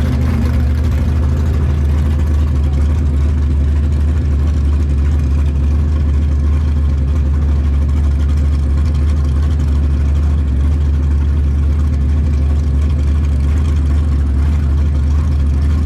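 Car engine running at a steady speed, a loud, even low drone with no revving.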